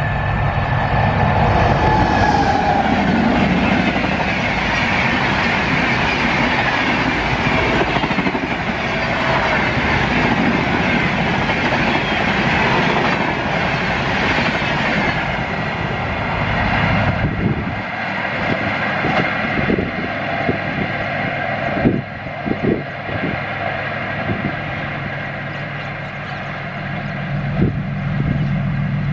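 Indian Railways Rajdhani Express passing at about 130 km/h: a loud rushing rumble of coaches going by for the first half. About halfway through it eases into quieter, irregular wheel clicks and knocks over the rail joints.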